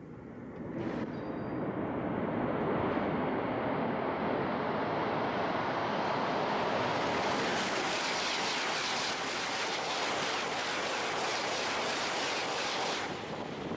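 E2 series Shinkansen running at high speed out of a tunnel. A rushing rumble builds from about a second in as the train comes up through the tunnel. It becomes a loud hiss of air and wheels as the train bursts out and passes, then falls off sharply near the end.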